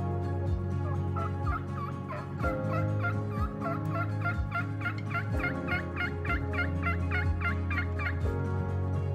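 Turkey call worked at the mouth: a long run of short, rapid yelps that comes faster, higher and louder toward the end, then stops about eight seconds in. Soft background music with a slow beat runs underneath.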